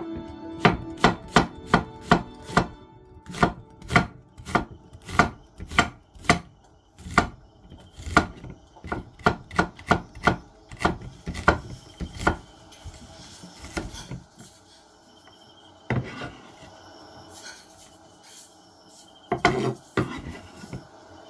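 Chef's knife slicing an onion on a wooden cutting board, the blade knocking the board about two to three times a second. The knocks stop about two-thirds of the way through, with one lone knock and a short cluster of knocks near the end.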